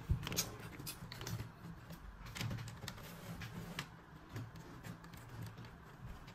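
Light knocks, taps and rustles of a cat shifting about on a desk among cables as a hand pushes it, with one sharp knock right at the start.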